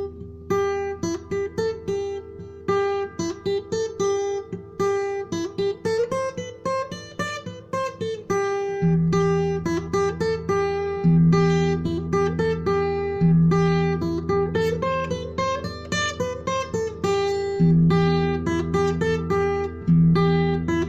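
Instrumental music: a plucked acoustic guitar melody of quick, evenly struck notes over sustained low bass notes that change every couple of seconds.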